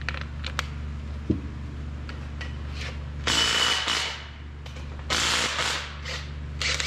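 Two short bursts of a handheld power tool running, each lasting under a second and the first with a thin whine in it, over a steady electrical hum.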